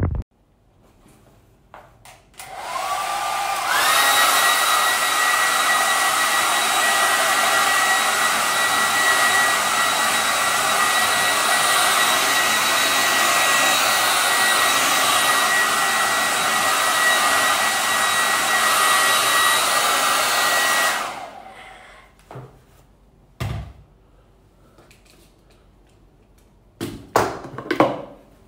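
Handheld hair dryer switched on, starting at a lower speed and stepping up to a louder, higher whine within a couple of seconds. It runs steadily for about seventeen seconds, then switches off. A few short knocks follow near the end.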